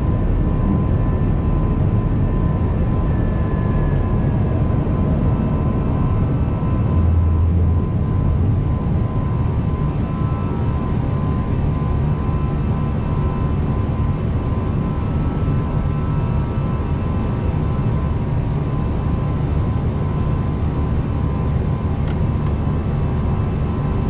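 Airliner cockpit noise in the climb just after takeoff: a steady rush of airflow and engine rumble with a thin steady tone running through it. A brief low thud comes about seven seconds in.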